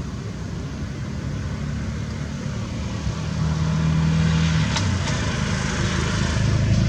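A motor vehicle's engine running, a low steady hum that shifts pitch a couple of times and grows louder about halfway through, with a hiss over it.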